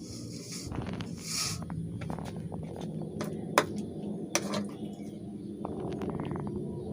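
Scattered light clicks and taps of kitchen handling, loudest twice in the middle, with a short hiss about a second in, over a steady low hum.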